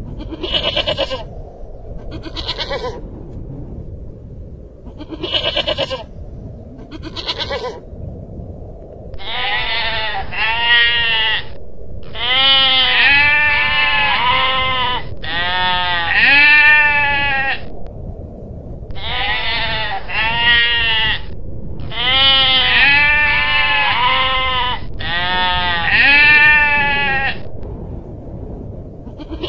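Long-tailed goral calling: four short, high calls over the first eight seconds, then a run of longer bleats from about nine seconds in, each rising and falling in pitch.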